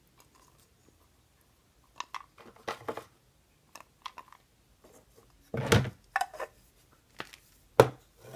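Rolls of washi tape being handled inside a hard plastic pineapple container: scattered light clicks and knocks of tape against plastic, with two louder knocks about halfway through and near the end.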